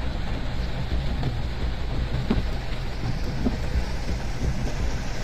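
Steady noise of heavy rain and floodwater running across a street, with the engine of a vehicle driving through the water.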